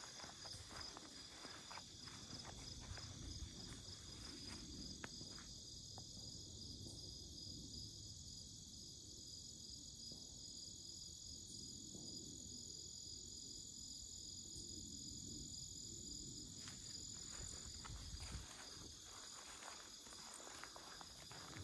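Crickets trilling steadily, a high chorus with a fast even pulse. Footsteps on the grassy trail are heard for the first few seconds, stop while the walker stands still, and start again near the end.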